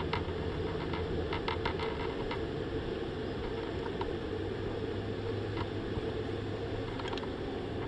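Steady rushing of flowing creek water, with a few faint ticks.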